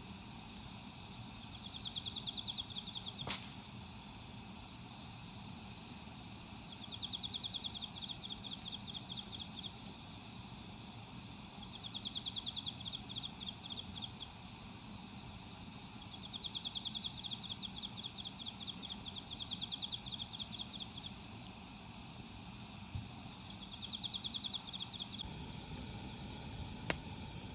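A high, rapid pulsing trill from a calling animal, repeated six times in bursts a second or two long, a few seconds apart, over a steady outdoor background. Two sharp clicks come through, about three seconds in and near the end.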